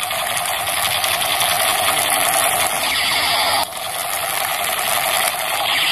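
Battery-powered toy assault rifle firing: a loud, harsh, rapid buzzing rattle in one long burst. It cuts off after about three and a half seconds and starts again straight away.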